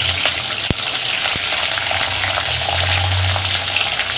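Garlic cloves frying in hot oil with mustard seeds in a clay pot: a steady sizzle with fine crackling. Two sharp clicks about a second in.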